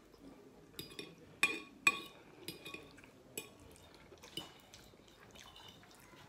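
Metal fork clinking and scraping against a ceramic plate while scooping up risotto: a string of sharp clinks, the loudest two about one and a half and two seconds in, thinning out in the second half.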